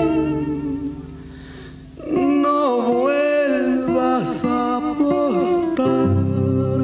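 Ranchera song: a singer holds a long note that fades away about a second in, then sings on from about two seconds in with bending, held notes over guitar accompaniment.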